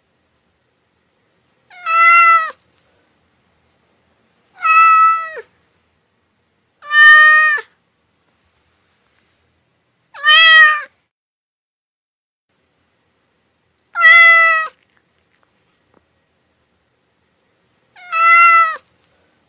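A cat meowing six times, a few seconds apart. Each meow is under a second long, holds a steady pitch and drops at the end, and the six sound nearly alike.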